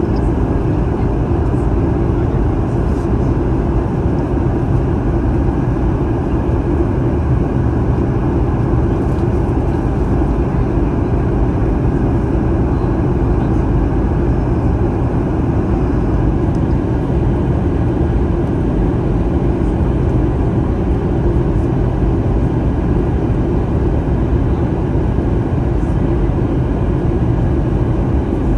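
Steady cabin roar of a Boeing 737-800 in flight, heard from inside the cabin beside the wing: CFM56-7B jet engine and airflow noise, heaviest in the low range and unchanging throughout.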